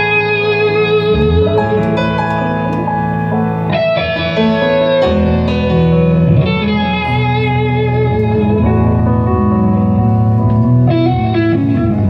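Live rock band playing an instrumental passage, electric guitar and keyboard to the fore over bass.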